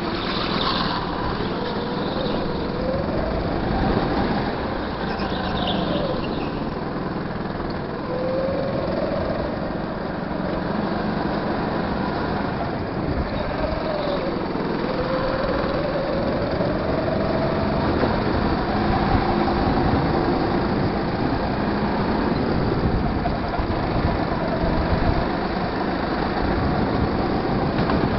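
Go-kart engine heard from onboard while lapping, its pitch rising and falling several times as the kart speeds up and slows for corners, over a steady rush of noise.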